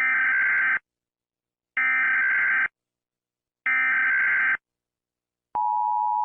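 Emergency Alert System SAME header: three short bursts of digital data tones, each under a second, about a second apart. About five and a half seconds in, the steady two-tone EAS attention signal begins.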